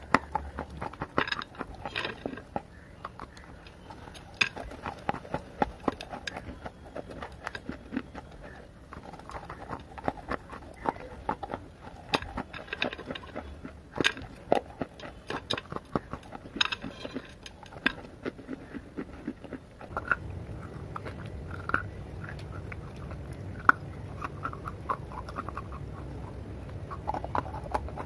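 Crunching and chewing of baked clay pieces (claypot and brick bits, multani mitti) close to the microphone, with many sharp, irregular crunches. About two-thirds of the way through, a steady low hum comes in and the crunches become sparser.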